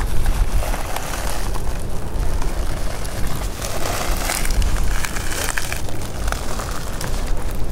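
Wind buffeting the microphone with a steady low rumble, over irregular crunching and crackling of footsteps on dry stone pine needles.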